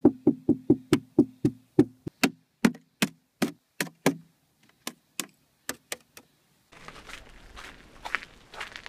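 Fingers tapping on a thin sheet of frozen sea ice, about twenty hollow knocks, each with a short low ring. The knocks come about four a second at first, then slow and fade. About 7 s in they give way to a steady outdoor hiss.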